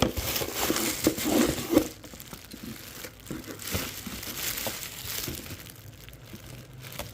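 Packaging crinkling and rustling as it is handled and opened by hand. It is loudest in the first two seconds, then goes on more quietly with scattered crackles.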